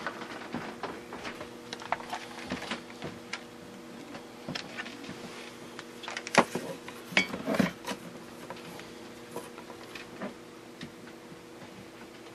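Scattered clicks, taps and light rattles of test leads and equipment being handled on a bench. The sharpest click comes about six seconds in and a small cluster follows, over a faint steady electrical hum.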